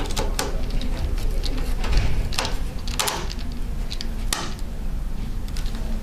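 Small screwdriver driving the tiny screws of an HP Mini 5103 netbook's hard drive housing: irregular clicks and scrapes of metal on metal and plastic, a few sharper clicks among them.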